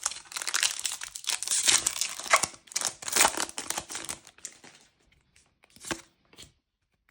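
Foil booster-pack wrapper crinkling and tearing as a trading-card pack is ripped open, dense for the first four and a half seconds, then a few light clicks of handling that die away.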